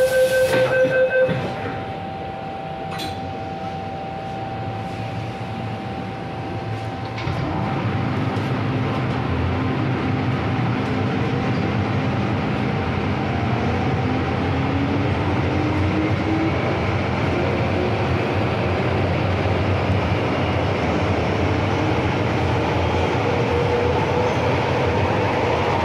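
MTR Tsuen Wan line M-Train: a rapid beeping door-closing chime that stops about a second in, then the train pulls away, its traction motors whining up in pitch as it gathers speed. It then runs on steadily.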